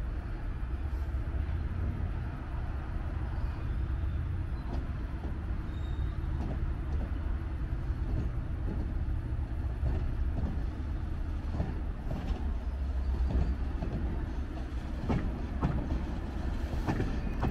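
Passenger train rolling slowly past over jointed track: a steady low rumble, with wheel clicks and knocks at the rail joints coming more often near the end as the cars draw close.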